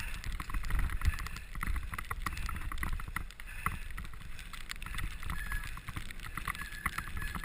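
Rattles and knocks of a bicycle ridden over a bumpy snow-covered trail, a quick irregular run of clicks over a steady low rumble.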